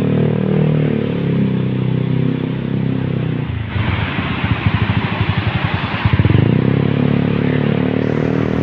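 Habal-habal motorcycle taxi engine running under way, heard from on the bike with rushing road noise. For a few seconds in the middle the steady engine note gives way to a rougher pulsing, then picks up again about six seconds in.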